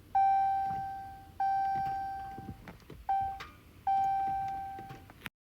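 Car warning chime sounding four times, each a single bell-like tone that fades away over about a second, with a few faint clicks in between. The sound cuts off suddenly near the end.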